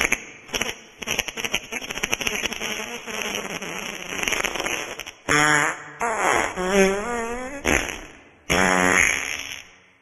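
Wet farts: a long sputtering fart of rapid crackles for about five seconds, then two pitched, wavering farts with a short burst between them.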